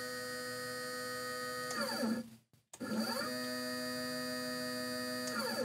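Escap stepper motor jogged at fast speed, unloaded on the bench: a steady whine that falls in pitch and stops about two seconds in, then a second run whose whine rises as the motor speeds up, holds steady and falls away as it stops near the end.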